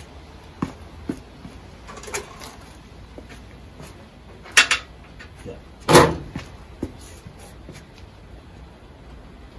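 Scattered knocks and clinks of hand tools and metal car parts being handled, with two louder clunks near the middle, the second the loudest.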